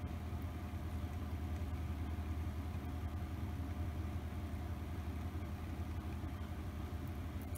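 Steady low electric hum of a motorized display turntable turning slowly.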